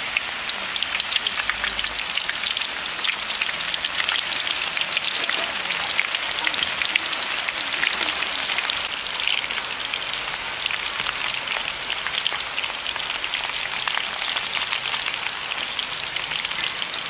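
Banana slices deep-frying in hot oil in a large aluminium wok: a dense, steady crackle of bubbling oil.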